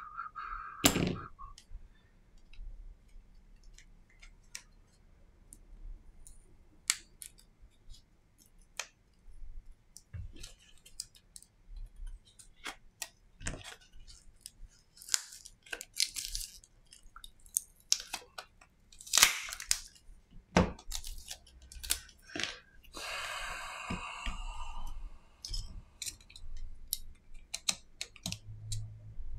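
Smartphone parts being handled and pried apart with a plastic pry card: irregular small clicks, taps and snaps of plastic and metal, with about two seconds of scraping noise around 23 seconds in.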